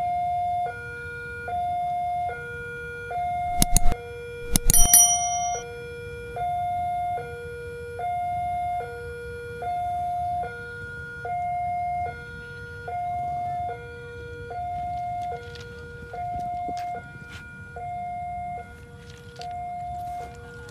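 Railway level-crossing warning alarm sounding a repeating two-tone chime, a high and a low tone alternating about once every second and a half, as the crossing closes for an approaching train. Two sharp knocks cut in about four and five seconds in; the second rings briefly.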